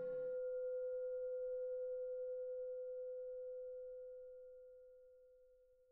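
Closing background music ends. A fuller textured layer cuts off just after the start, leaving a single sustained bell-like ringing tone that fades slowly away.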